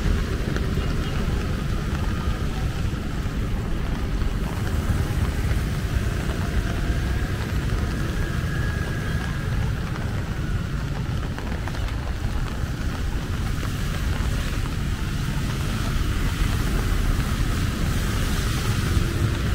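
Steady street traffic: tuk-tuks, motorbikes and cars running on a wet road, with wind rumbling on the microphone.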